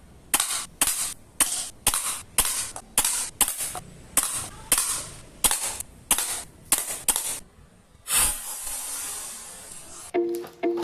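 A string of about fifteen sharp gunshot-like cracks, roughly two a second, each dying away quickly. Then a burst of hiss that fades, and plucked-string music starting near the end.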